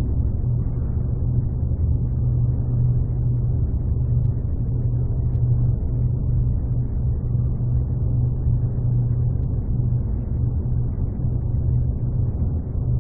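Steady low mechanical rumble, like an engine running, with no breaks or changes.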